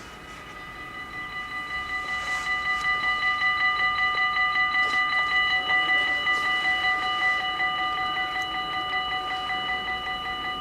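Dutch level crossing warning bells ringing rapidly, several strokes a second, swelling over the first few seconds and then steady. They signal that the barriers are closing for an approaching train.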